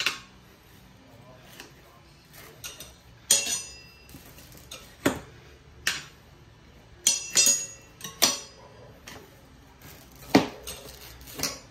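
Steel tyre bars clanking and clinking against a dirt-bike wheel rim and tyre-changer stand while a tyre is levered on by hand: about nine separate sharp metal knocks at uneven intervals, several ringing briefly.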